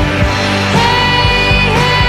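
Music with a steady drum beat of about two hits a second under sustained melodic notes.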